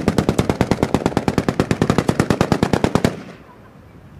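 Machine-gun fire: one long burst of about twelve shots a second that stops sharply about three seconds in.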